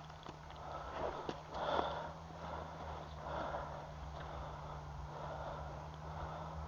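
A person breathing and sniffing through the nose in short puffs about once a second, with a few small clicks of handling about a second in.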